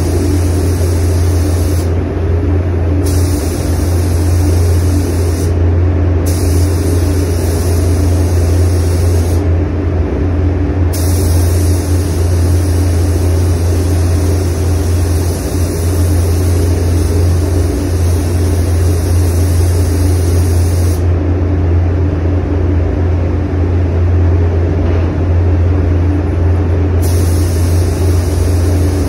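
Air spray gun hissing as it lays a colour coat on a bumper, the hiss stopping for a moment several times and for about six seconds near the end as the trigger is released. Under it, a steady low drone of the spray booth's ventilation.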